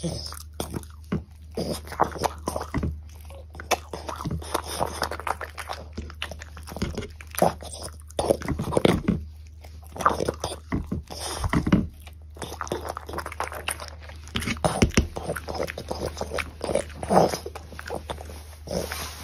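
A French bulldog biting into and chewing okra stuffed with meat: irregular crunching bites and chewing in runs, with short pauses between mouthfuls.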